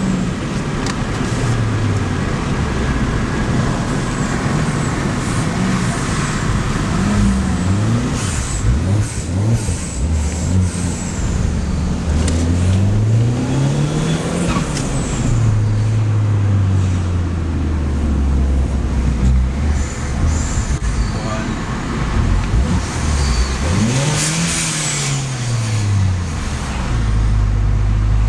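Peugeot 207 RC's 1.6-litre turbocharged four-cylinder engine being driven hard through the gears, its pitch climbing and dropping repeatedly, with a long pull about halfway through and another near the end. A faint high turbo whistle rises and falls with the revs.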